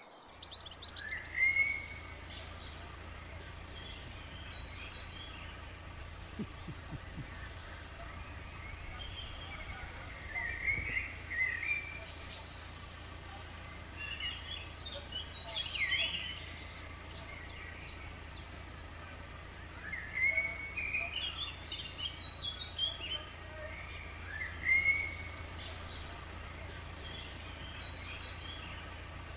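Songbirds singing, short twittering phrases every few seconds over a steady low rumble.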